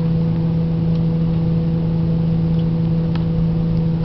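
Steady low mechanical hum from a running machine, one constant pitch with fainter overtones, with a faint click about three seconds in.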